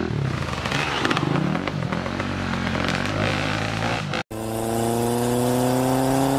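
Enduro dirt bike engines running and revving unevenly as the bikes climb a forest trail. About four seconds in this cuts off abruptly and gives way to a steady, slowly rising engine-like tone.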